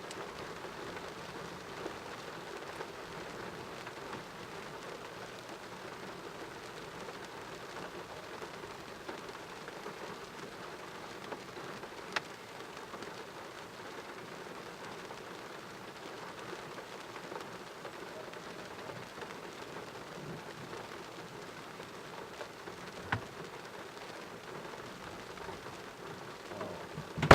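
Thunderstorm rain falling steadily as an even hiss, with a couple of sharp ticks, about twelve seconds in and again near the end.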